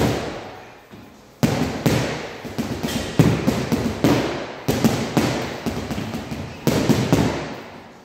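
Boxing gloves punching a hanging heavy bag in quick combinations: a string of sharp thuds in several flurries, each ringing on briefly in the hall's echo.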